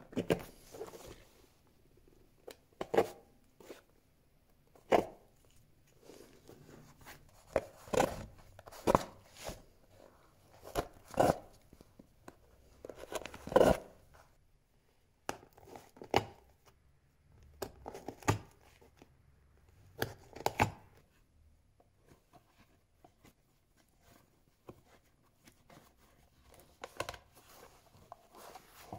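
Old sole stitching on a worn leather shoe being picked and torn out with a hand tool: a series of short, sharp snapping and tearing sounds, irregular and a second or two apart.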